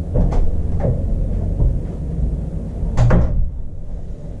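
A few short knocks and a louder thump about three seconds in, over a low rumble, as a person moves about a small room.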